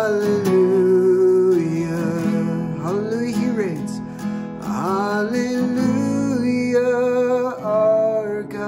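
A man singing a worship song and strumming a Takamine acoustic guitar, holding long sung notes with a couple of sliding pitch changes near the middle.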